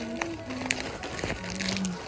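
Background music with held notes, over a few short clicks.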